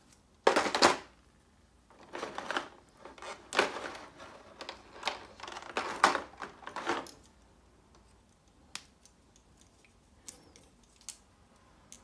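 Clear plastic blister tray crinkling, with small action-figure parts clicking against it as they are handled and set back in. The loudest rustle comes about half a second in, more follows over the next six seconds, and then only a few faint clicks.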